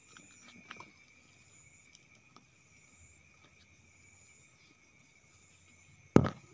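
Night insects trilling steadily at two high pitches, with a few faint clicks. Near the end there is a loud, sudden thump.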